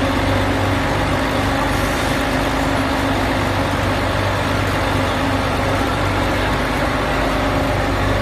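Steady engine drone with a constant low hum, unchanging throughout, like a vehicle's motor running.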